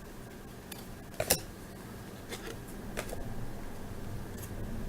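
Trading cards being handled quietly: a few light clicks and taps, the sharpest about a second in, over a low steady hum.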